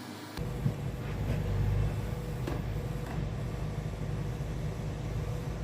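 Sawmill's engine running steadily, with a single knock about half a second in.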